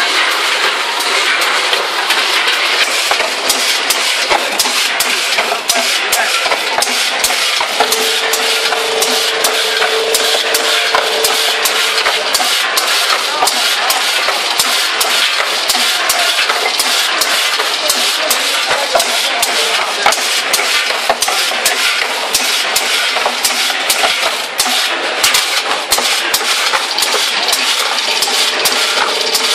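Popcorn packing-line machinery with a multihead weigher running: a loud steady noise with frequent clicks and clatter, and a steady tone for a few seconds about a third of the way in and again near the end.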